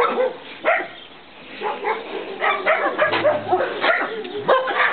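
Several dogs barking and yipping in short, overlapping calls, with a brief lull about a second in.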